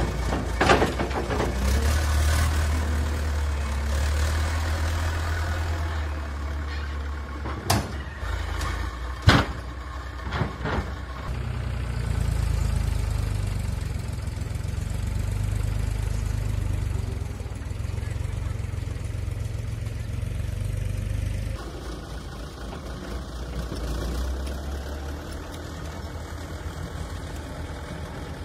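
Backhoe loader's diesel engine running steadily, with a clatter of concrete blocks tumbling from its front bucket into a tractor trailer at the start and two sharp knocks about a third of the way through.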